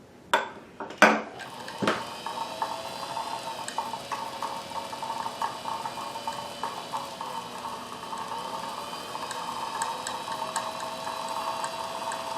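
Bernina 610 sewing machine running to wind a bobbin, a steady motor hum whose pitch dips and rises a little as the speed changes. A few clicks come in the first two seconds as it starts.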